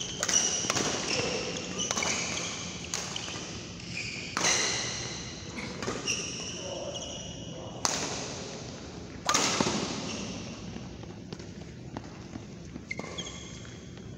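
Badminton rally: rackets smacking a shuttlecock in a string of sharp hits, with high squeaks of court shoes on the floor mat, echoing in a large hall. A loud smack comes about nine seconds in, then a quieter spell before the squeaks pick up again near the end.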